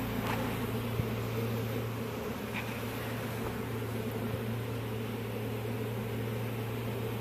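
Honeybees buzzing in a steady hum, with a few faint light knocks.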